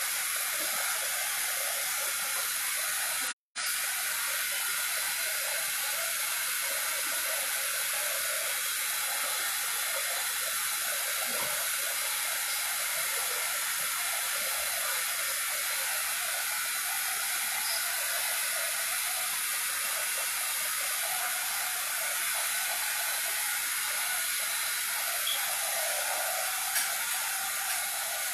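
Heat gun blowing a steady hiss of hot air over freshly poured epoxy on a cup, which smooths the coat out.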